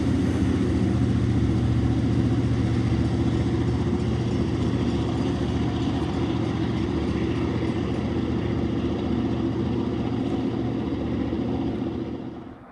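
Diesel freight train passing: a steady, low locomotive engine drone over the rumble of hopper cars on the rails, easing off slightly. It cuts off abruptly near the end.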